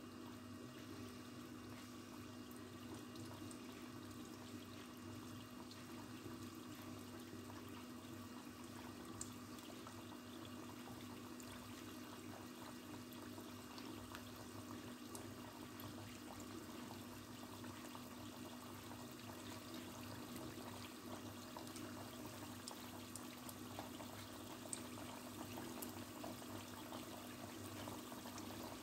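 Biscuit dough pieces frying in hot desi ghee in a kadhai: a faint, steady sizzle with a few small pops, the pieces just starting to fry.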